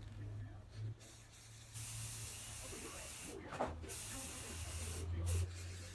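Aerosol spray-paint can spraying in two long bursts of about a second and a half each, then a short spurt near the end, over a steady low hum.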